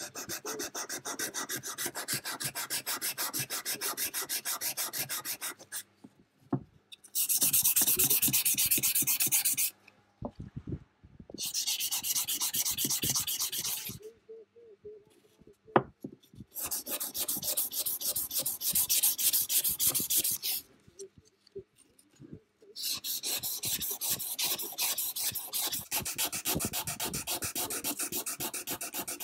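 Hand abrasion of the steel vernier calipers: rapid back-and-forth scraping strokes of a file or abrasive, in five bouts with short pauses between them. A few sharp clicks fall in the pauses, one of them loud just past the middle.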